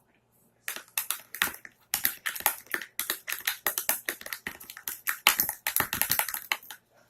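Slime mixture being stirred in a container after more soap is added: a fast, uneven run of clicks and taps that starts about a second in and stops just before the end.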